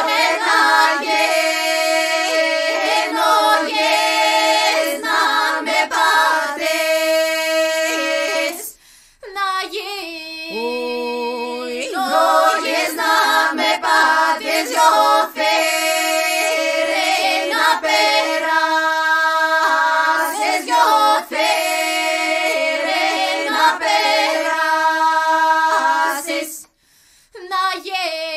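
A women's choir singing Greek folk polyphony a cappella: several voices weave melody lines over one long held low note. It moves in long phrases, with brief breaks about nine seconds in and near the end.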